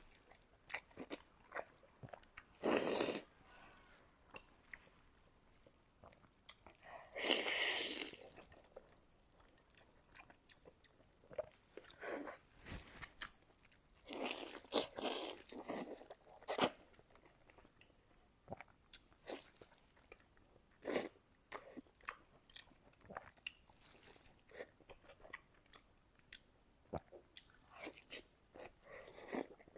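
Close-miked chewing and biting of fatty pork belly: wet mouth clicks throughout, with louder bites about three seconds in, around seven seconds, and around fifteen seconds.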